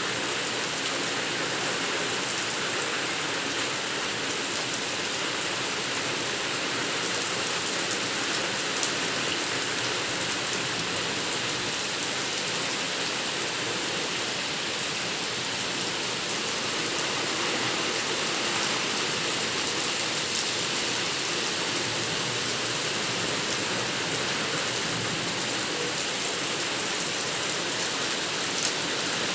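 Steady rain falling on a surface, a constant hiss with a few sharper drop ticks here and there.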